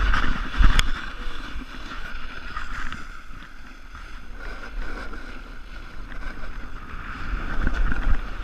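Snowboard edge scraping and sliding over snow at speed, with wind buffeting the camera microphone. A sharp knock under a second in.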